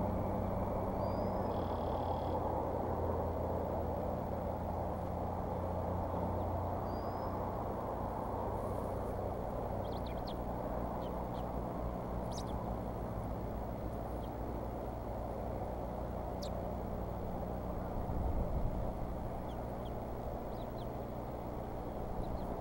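Steady outdoor background rumble picked up by the eagle nest-cam microphone, like distant traffic or wind, with a few faint short high chirps from birds near the nest.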